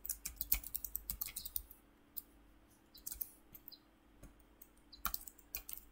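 Typing on a computer keyboard: a quick run of key clicks for about two seconds, then a few scattered clicks and a short flurry near the end.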